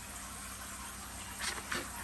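Steady hiss of a pot of seafood boil at the boil, with two brief sharp sounds about a second and a half in.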